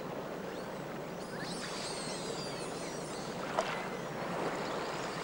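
Steady rush of running water, with high, twittering bird chirps between about one and three seconds in and a short squeak a little later.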